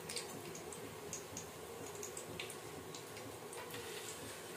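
Hot oil left in an aluminium pot after frying onions, crackling faintly with a scattering of small pops over a steady low sizzle.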